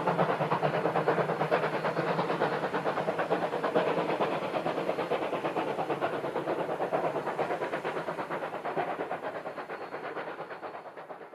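Steam locomotive under way, its exhaust beating evenly about four times a second, fading steadily as the train moves away until it is almost gone near the end.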